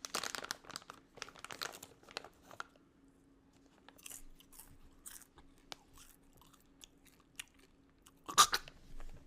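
Popcorn crunching as it is chewed with the mouth close to the microphone, dense for the first couple of seconds, then sparser, scattered crunches. A short louder sound comes about eight seconds in, over a faint steady hum.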